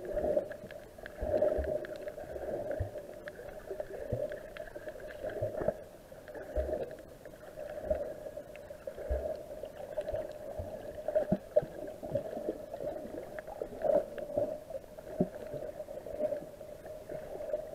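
Muffled underwater sound heard through an action camera's waterproof housing during a breath-hold dive: a steady hum with irregular low thuds and knocks.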